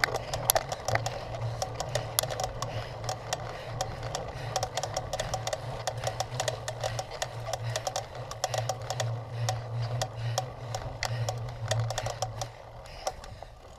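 Cyclocross bike clattering and ticking while being ridden: a dense, irregular run of clicks over a steady low hum.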